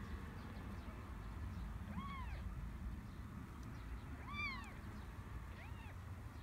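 Newborn kittens mewing: three short, high, thin mews, each rising and falling in pitch, spread a second or two apart.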